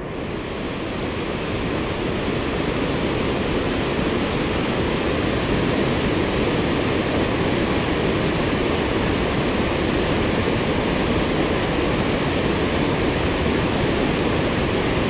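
Steady rush of high, fast river water at a lock, running evenly throughout.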